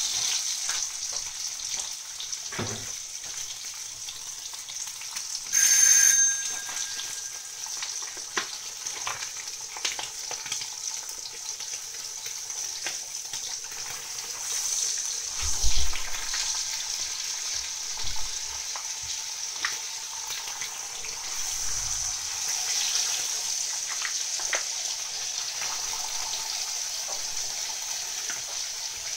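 Slices of chicken salami sizzling and crackling as they fry in a pan. A short, loud tone sounds about six seconds in.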